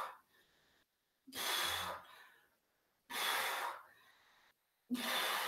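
A woman breathing hard from exertion: a loud, noisy breath about every 1.8 seconds, in rhythm with her dumbbell squats, with dead silence in between.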